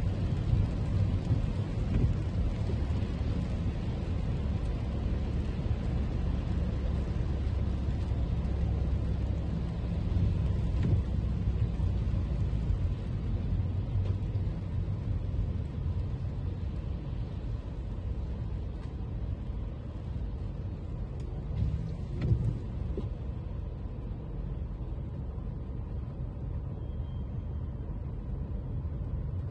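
Toyota Camry driving on rain-wet streets: a steady low road rumble with tyre hiss from the wet pavement. The hiss grows fainter about halfway through.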